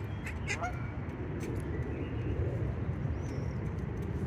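Outdoor ambience: a steady low rumble, with a few faint short bird calls, one about half a second in and a higher one a little after three seconds.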